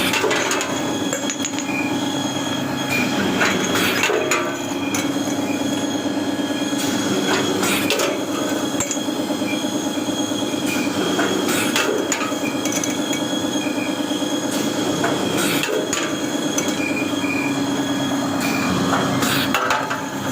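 Screen-printing ink-removing machine (rinser) running, with a steady motor hum and a faint high whine, and sharp clattering knocks every second or so.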